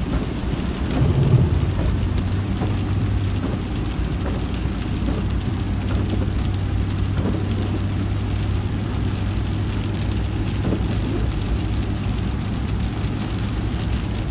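Rain falling steadily on a vehicle, with its engine running as a low, steady drone underneath.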